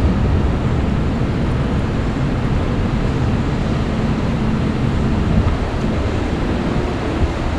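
Steady city street noise: a deep traffic rumble with the hiss of tyres on wet streets above it, and no single event standing out.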